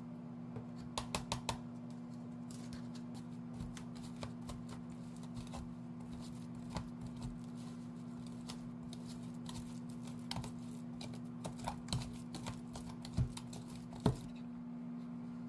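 Light, irregular clicks and taps of kitchen utensils during food preparation, with a quick run of four about a second in and two sharper knocks near the end, over a steady low hum.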